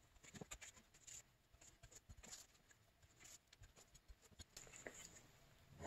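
Near silence, with faint rustles and light ticks of a shop rag wiping out the inside of an aluminium crankcase half.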